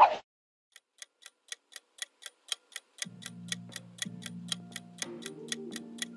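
Clock-ticking sound effect for a quiz countdown timer, about four ticks a second, starting about a second in. Soft background music comes in under the ticking about three seconds in, and a brief transition sound is heard at the very start.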